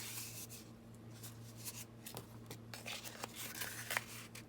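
Thick cardstock being bent and folded in half by hand: soft rustling and scraping with scattered small creaks and ticks as the stiff card resists the fold, over a steady low hum.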